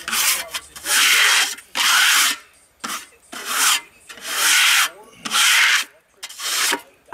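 A hand tool stroked hard across the freshly sawn face of a maple log, making scratchy strokes about once a second, about seven of them.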